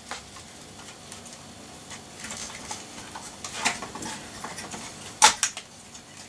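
Handling noise as a 3.5-inch hard drive is worked loose and slid out of a computer's sheet-metal drive cage: light clicks and metal scrapes, with a sharper click about three and a half seconds in and the loudest click a little past five seconds.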